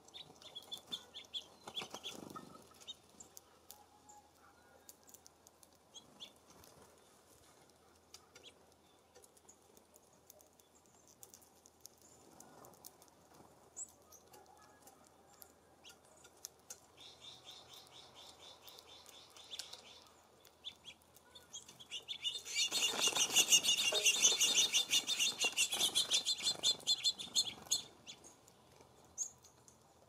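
Small songbirds at a feeder: scattered short high chirps, then a softer run of quick repeated notes, and about twenty-two seconds in a loud, fast run of rapidly repeated notes lasting some five seconds.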